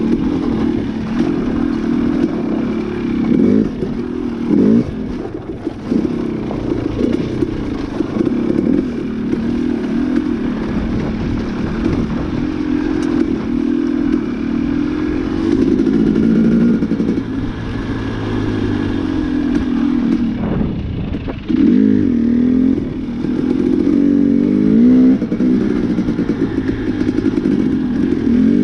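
Dirt bike engine running as it is ridden along a dirt trail, its pitch rising and falling with the throttle, with a brief drop in engine note twice.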